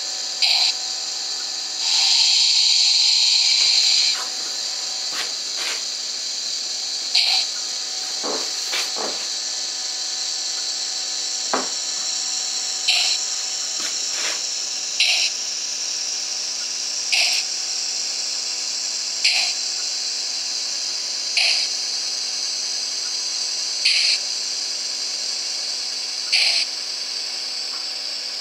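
Sound decoder of a Piko HO-scale 040 steam locomotive model playing slow steam chuffs, about one every two seconds, over a steady hiss, with a longer, louder steam blast about two seconds in.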